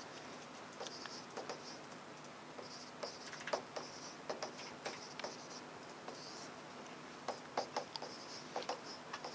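Pen writing: faint, irregular scratching strokes and small taps in clusters, with short pauses between them.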